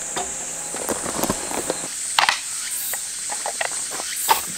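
Steady high-pitched chirring of crickets, with scattered clicks and knocks of camping gear being handled. The loudest knocks come about two seconds in and near the end.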